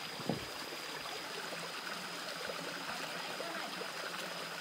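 Shallow rocky forest stream flowing and trickling steadily over stones, with one short knock about a third of a second in.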